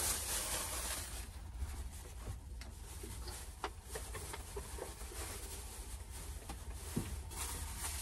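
Quiet small-room noise inside a camper van: a steady low hum with a few light knocks and rustles from someone moving about and handling things.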